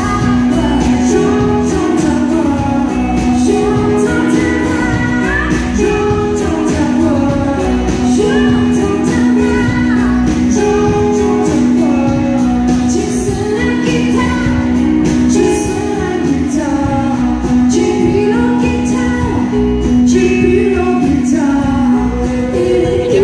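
A live country band plays a song with singing, with acoustic and electric guitars and drums amplified through stage speakers.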